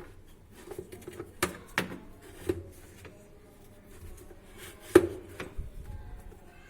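Plastic knocks and clicks of a washing machine's lint filter being handled and fitted back into the drum, with one sharper knock about five seconds in.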